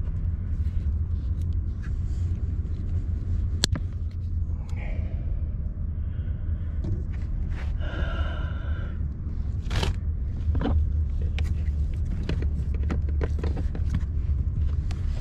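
Scrapes and clicks of a cable being handled and pushed behind plastic dashboard trim by hand, over a steady low rumble. A brief squeak comes about eight seconds in.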